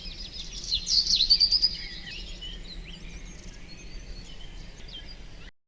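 Recorded sound effect of several birds chirping and trilling together in a busy chorus, loudest about a second in, over a faint low background hum.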